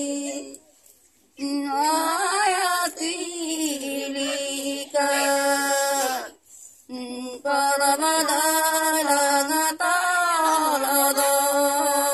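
Elderly women singing a Santali folk song unaccompanied, in long held, wavering phrases with two short pauses for breath.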